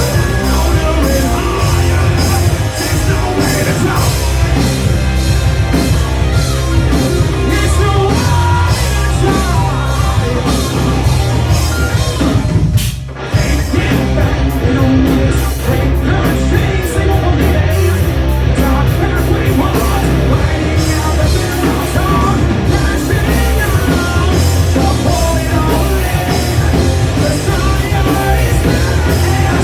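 Loud live rock band playing a song with singing, drums and amplified instruments, with a brief break in the music about halfway through.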